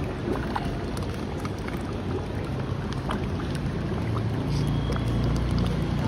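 Street traffic: a steady low rumble with a few light clicks, growing louder in the last couple of seconds as a vehicle nears.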